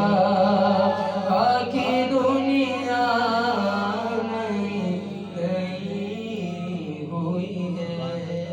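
Male voice chanting a devotional naat refrain in a drawn-out melody over a steady low drone, growing softer after about five seconds.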